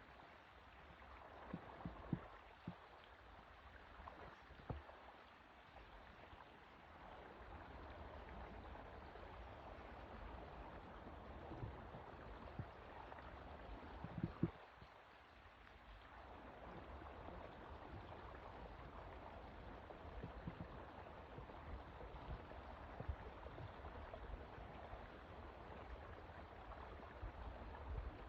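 Faint, steady water noise, like a stream or water moving around a boat, with a few short knocks scattered through it; the loudest knock comes about fourteen seconds in.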